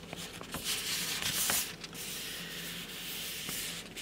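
A printed paper cross-stitch pattern sheet rubbing and rustling as it is handled. The sound is loudest about a second in, with a few soft ticks, then fainter.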